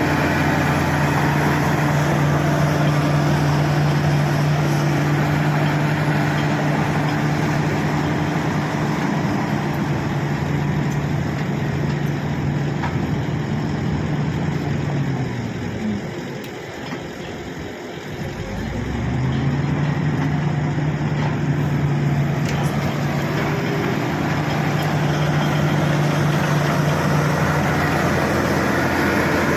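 Shantui SD16 bulldozer's diesel engine running steadily; about halfway through its speed sags and then climbs back up.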